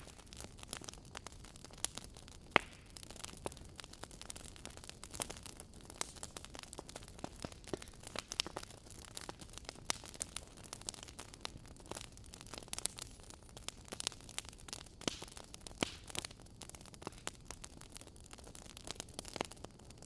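Wood fire crackling in a fireplace: irregular sharp pops and snaps over a soft steady hiss, with one louder pop about two and a half seconds in.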